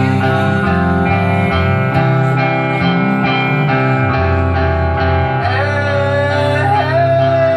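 Live emo rock band playing: electric guitars, bass and drums keep a steady beat. Near the end a note bends up and is held.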